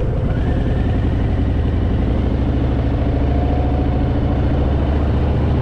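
Harley-Davidson Fat Boy's V-twin engine running steadily while the motorcycle cruises along at an even speed.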